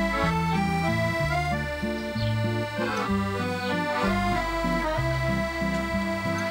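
Accordion music: a melody over held chords and a bass line that steps from note to note.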